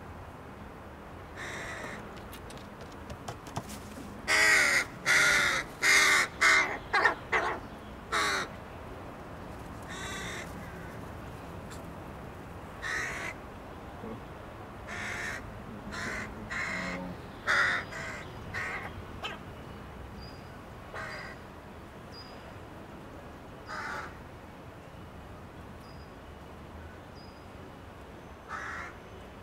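Crows cawing: a fast run of about seven loud caws from about four to eight seconds in, then scattered single and paired caws through the rest.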